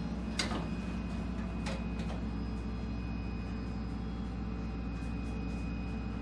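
Steady low machinery hum with a thin high whine over it, with a few light knocks in the first two seconds.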